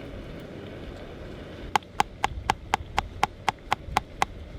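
A large bushcraft knife chopping food in quick, even strokes, about four sharp knocks a second, starting a couple of seconds in.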